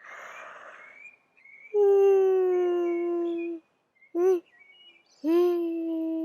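A woman yawning aloud on purpose: a breathy intake, then a long drawn-out voiced yawn held on one slowly sinking note, a brief rising-and-falling vocal sound, and a second long voiced yawn starting about five seconds in.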